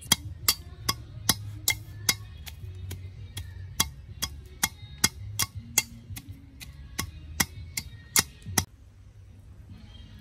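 Wooden pestle pounding peeled garlic in a metal mortar: a steady run of sharp, ringing knocks, about two and a half a second, that stops about a second before the end.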